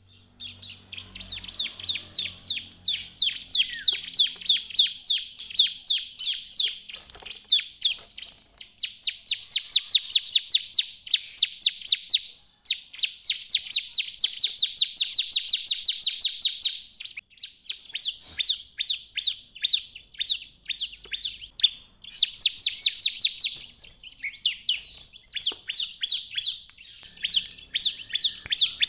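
Bar-winged prinia (ciblek) in full, vigorous song: long runs of rapid, sharp repeated chirps, each run lasting several seconds with short breaks between.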